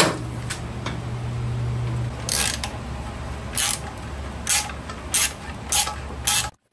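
Ratchet wrench working a bolt loose on the motorcycle's engine mount: about six short, sharp ratcheting rasps at irregular intervals over a steady low hum.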